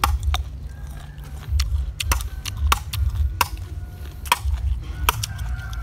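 Machete chopping and shaving the husk and shell of young green coconuts: a string of sharp, irregular chops and cracks over a steady low rumble.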